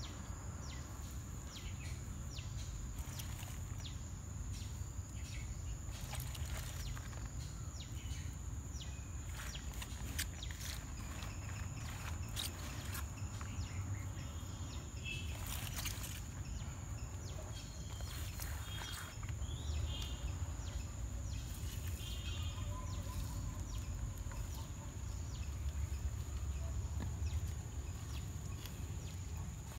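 Rural outdoor ambience: a steady high insect drone and low rumble, a few short bird calls, and scattered soft clicks and rustles of hands tossing chopped shallots and grated coconut in a clay pot.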